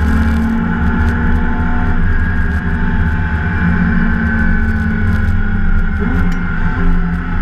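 BMW 325 race car's straight-six engine running hard under load, heard from inside the cockpit with heavy low rumble; its pitch climbs slowly, then shifts about six seconds in.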